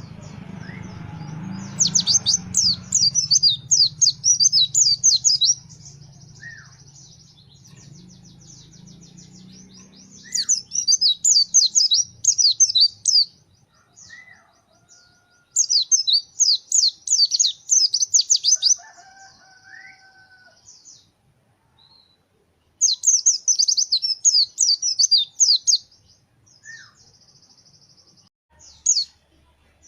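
Pleci, a white-eye (Zosterops), singing its rapid, high-pitched chattering 'shooting' song in four bursts of about three seconds each, with single short call notes between them.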